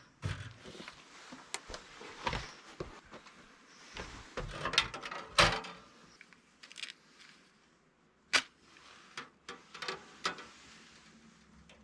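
Irregular knocks, taps and clatter of things being handled and set down, with a louder knock about five seconds in and another a little after eight seconds.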